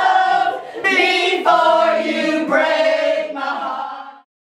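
A small group singing together without accompaniment, fading out near the end.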